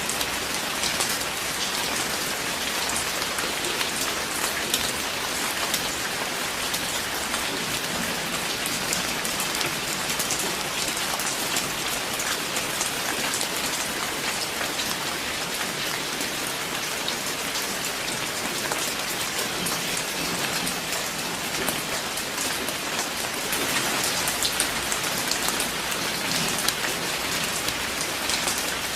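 Steady rain falling, a dense patter of drops hitting a surface, a little heavier for a few seconds near the end.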